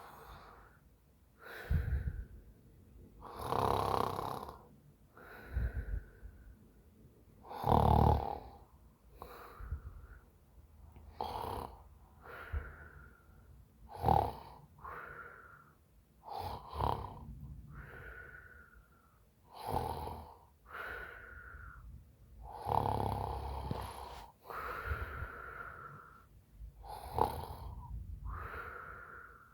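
A woman snoring in her sleep after a few drinks, with irregular breaths every two to four seconds. Loud, rough snores alternate with breaths that carry a pitch falling away.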